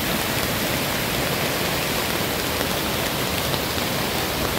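A river in flood rushing through whitewater rapids over rocks: a steady, unbroken rush of water.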